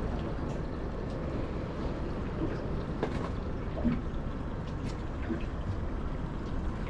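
Steady wind and water noise aboard a small fishing boat at sea, with a few faint ticks.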